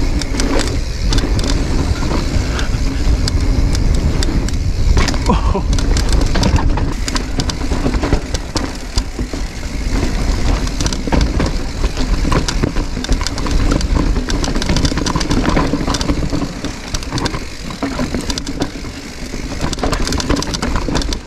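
Giant Reign full-suspension mountain bike descending a rough downhill trail at speed. A steady rumble of wind on the microphone and tyres on dirt runs under dense, irregular rattles and knocks from the bike over rocks and roots.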